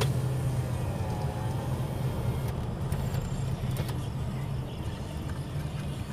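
Car engine and road noise heard inside the cabin while driving, a steady low rumble, with a couple of faint clicks about two and a half and four seconds in.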